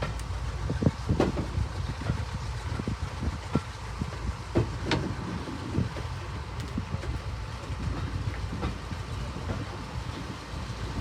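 Diesel-hauled train running along the rails: a steady low rumble with irregular clicks and knocks from the wheels over the track.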